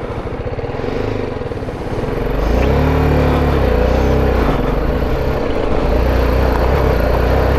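BMW G310 GS single-cylinder motorcycle engine, ticking over at first, then pulling away about two seconds in, with the revs rising and dropping through the gears before it settles into steady running.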